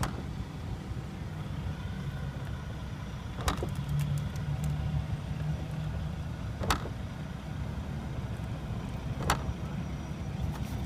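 Three sharp clicks about three seconds apart from a 2015 Kia Sorento's liftgate latch as the release button is pressed and the hatch fails to open, over a steady low hum. The owner takes this for a defective latch.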